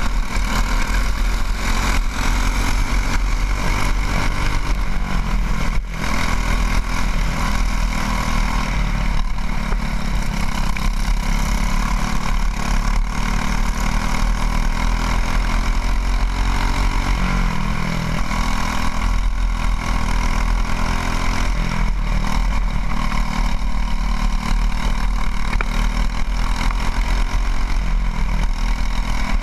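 Racing kart engine running hard, heard from on board, its pitch rising and falling as the driver works the throttle through the corners, with wind hiss over it. The engine note drops briefly about six seconds in.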